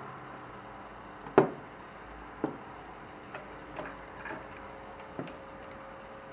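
Steady low hum from a Pinto J.C. Penney CB radio, which the owner takes for AC hum since it goes away on DC power. Several sharp clicks or knocks sound over it, the loudest about a second and a half in.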